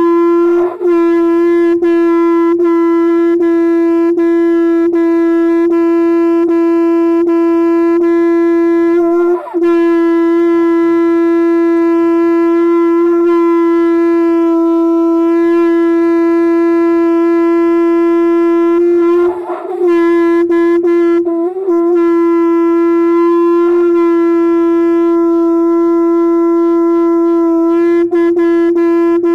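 Conch shell (shankh) blown in one long, steady, unbroken note held for the whole stretch, wavering briefly three or four times.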